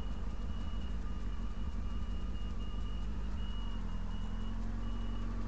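Pedestrian crossing signal beeping, short high beeps about twice a second while the lights hold traffic for people crossing, over a motorcycle engine idling steadily.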